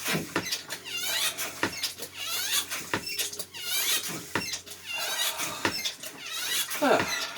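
Manual bilge hand pump worked in repeated strokes, each stroke bringing a squeak and a wet sucking of bilge water.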